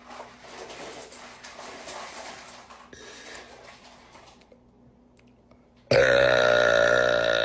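A young woman lets out a long, loud burp beginning about six seconds in, its pitch wavering. Before it there are several seconds of faint noise and a short lull.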